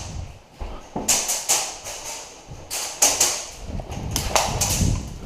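Airsoft guns firing indoors: three short volleys of sharp cracking shots, about a second in, at three seconds and near the end, over low thuds.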